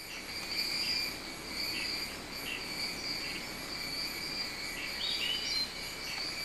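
Insect chorus trilling steadily at a high pitch, with short chirps repeating about once a second and a brief rising call a little past five seconds in.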